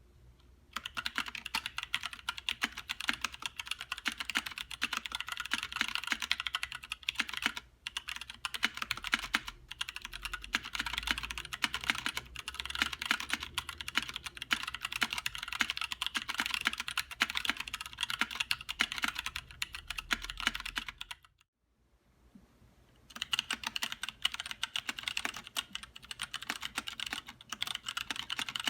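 Steady fast typing on a 60% mechanical keyboard with 67g Zealios tactile switches on an aluminum plate in an acrylic case, dense key clacks throughout. About three quarters in the typing stops briefly and resumes, the switch to a second keycap set: first DCS-profile Signature Plastics caps, then GMK Cherry-profile ABS caps.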